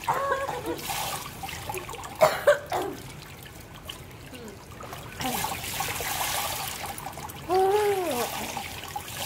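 Swimming-pool water lapping and splashing against the pool edge close to the microphone, with a trickling sound as it runs over the edge; it swells for a couple of seconds just past the middle.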